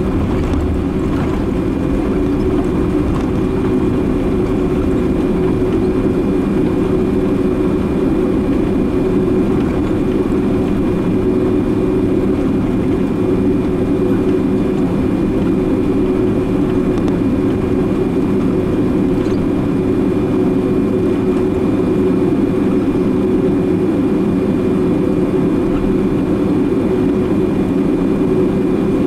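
Steady cabin noise inside a Boeing 767-300 taxiing on the ground: its twin jet engines run at low taxi power, giving a low, even hum with a thin steady whine over it.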